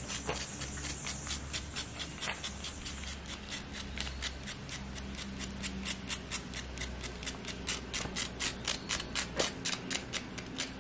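An insect calling: a steady run of short, high, dry clicks at about four a second.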